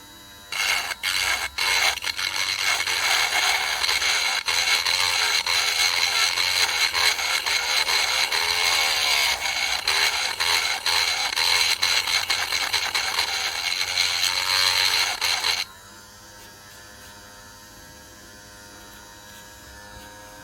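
Metal scraping as the rivet of a die-cast toy car is filed down: a dense, continuous rasping with brief breaks that stops suddenly about fifteen seconds in, leaving a low steady hum.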